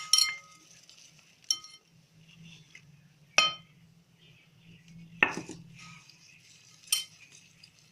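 Metal kitchen utensil clinking against a mixing bowl five times, about every two seconds, each clink ringing briefly, while egg and flour are mixed into crepe batter.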